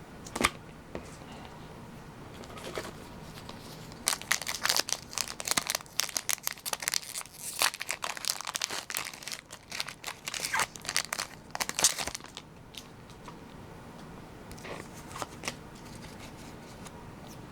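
Plastic-foil wrapper of a Pokémon booster pack being torn open and crinkled in the hands: a few seconds of dense crackling and tearing, then a couple of softer crinkles near the end.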